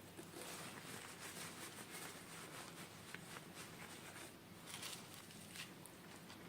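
Faint rustling with small clicks and ticks, like hands opening and handling plastic toy packaging; the rustling fades about four and a half seconds in, leaving a few light clicks.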